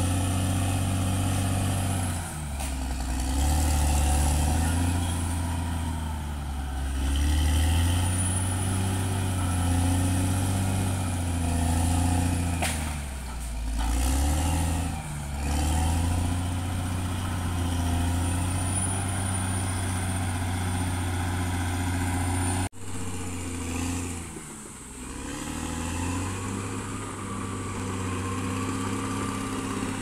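CAT D6R XL bulldozer's diesel engine running under changing load as it works, its pitch dipping and recovering several times, most clearly about halfway through. A thin high whistle comes and goes above the engine.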